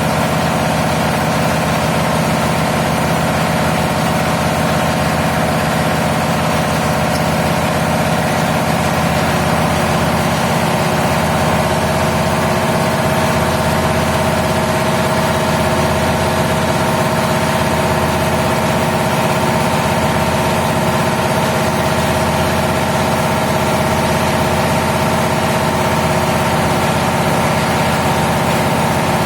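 Steady drone of a running engine, holding an even pitch and level with no change.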